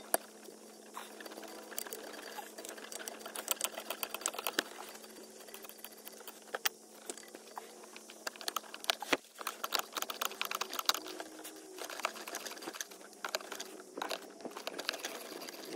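Irregular small clicks, taps and scrapes of gloved hands and a tool working the coolant hose clamps and hoses deep in a diesel engine bay, over a faint steady hum.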